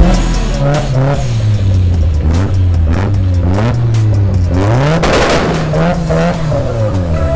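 Mazda sports car engines, a Miata and then an RX-7, revved hard again and again during burnouts, the pitch climbing and dropping about once a second over the noise of spinning tyres. A louder rush of noise comes about five seconds in.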